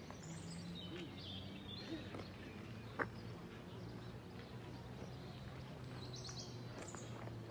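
Quiet outdoor ambience with birds chirping, in two short spells near the start and about six seconds in, over faint distant voices and a low hum; a single sharp click about three seconds in.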